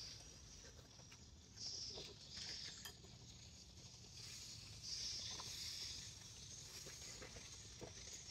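Quiet sounds of eating noodle soup: faint clicks of chopsticks and spoons against ceramic bowls, with a soft high hiss that swells twice.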